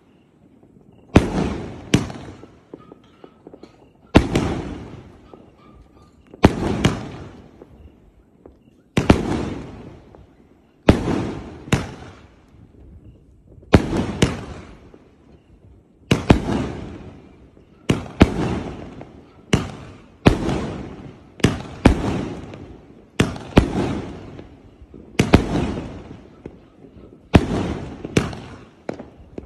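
A 2-inch, 49-shot fireworks cake firing shot after shot, about one every two seconds. Each shot is a sharp bang, often two close together, followed by a fading tail as the shell bursts.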